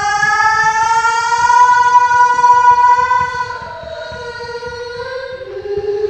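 A wailing, siren-like tone with many overtones that slowly rises in pitch, holds, then sinks away about three and a half seconds in; a lower wail starts to rise near the end.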